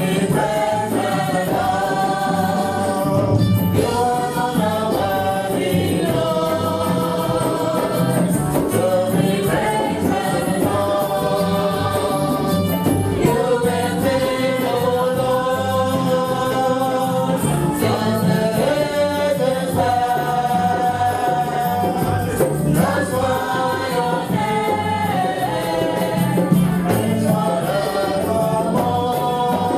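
Congregational gospel singing by a choir over a steady percussion beat, with tambourine.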